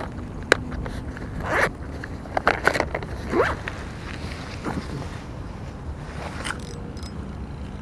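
Fishing tackle being handled: a sharp click about half a second in, then several short, scratchy, zip-like strokes over the next few seconds, with a steady low background rumble.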